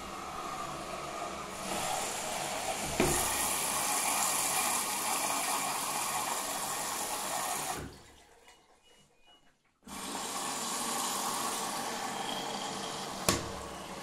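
Candy GO 510 front-loading washing machine taking in water at the start of a Cottons 90 °C boilwash: a steady rush of water from the inlet valve through the detergent drawer. It stops for about two seconds around eight seconds in, then starts again, with a sharp click just before the end.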